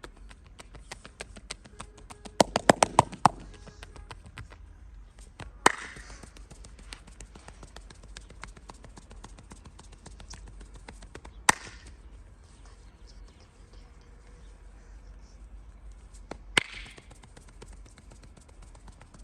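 Percussive massage sounds from a masseur's hands: a quick run of about six sharp taps a little over two seconds in, then three single loud sharp cracks or slaps about six seconds apart, with faint ticking in between.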